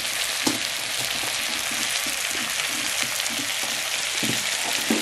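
Potatoes, green peas and spices frying in hot oil in a cooking pot, a steady sizzle, with a few soft knocks about half a second in and near the end.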